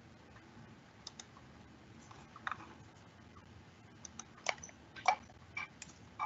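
Faint, irregular clicking and tapping on a computer keyboard and mouse, with a few sharper taps about four and a half and five seconds in.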